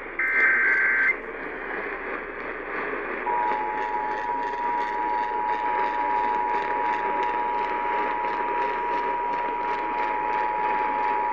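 Emergency Alert System tones received over AM radio: the last of the SAME digital data bursts, a warbling buzz that ends about a second in. After a couple of seconds of static, the steady two-tone EAS attention signal (853 and 960 Hz) starts and holds. AM static hiss and crackle runs underneath throughout.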